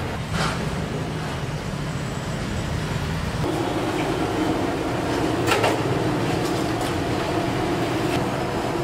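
A steel skimmer clinks a few times against a large aluminium pot as it scoops parboiled rice and drops it in, the loudest clink about five and a half seconds in. Under it runs a steady rumbling roar, with a hum joining about three and a half seconds in.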